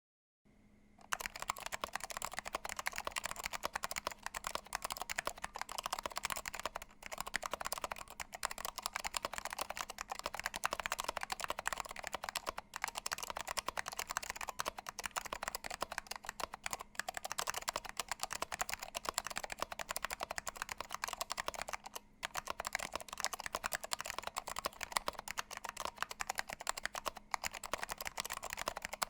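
Continuous typing on an Alps64 mechanical keyboard with Orange Alps switches in a steel plate and plastic case, with PBT keycaps: a dense stream of key clicks starting about a second in, with a few brief pauses.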